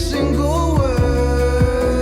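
Background pop song: a sung vocal line over bass and a steady drum beat.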